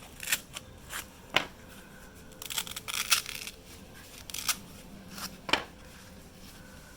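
Plastic inserts being pulled out of ESSTAC KYWI nylon magazine pouches. Scattered sharp clicks and knocks mix with short scrapes and rustles of nylon, with a busier stretch about three seconds in.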